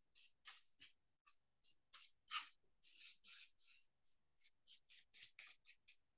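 Flat paintbrush scrubbing paint onto a wooden pumpkin cutout: a faint, uneven run of short brushing strokes, several a second, with a firmer stroke a little over two seconds in.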